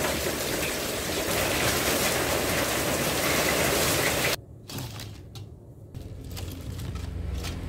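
Heavy rain pouring onto a concrete yard and road: a loud, steady hiss. About four seconds in it cuts off abruptly to a quieter low hum with scattered light clicks and knocks.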